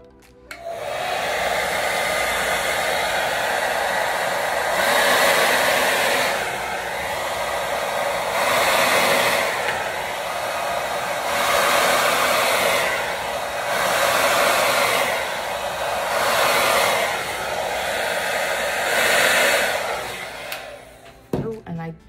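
Remington hand-held hair dryer on its cool setting blowing air onto a wet acrylic pour painting. It switches on about half a second in, runs with a steady rush that swells louder every three to four seconds, and cuts off shortly before the end.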